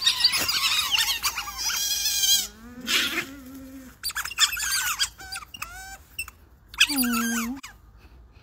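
A group of otters calling: many overlapping high-pitched squeaks and chirps, with a lower, drawn-out call about three seconds in and another near seven seconds.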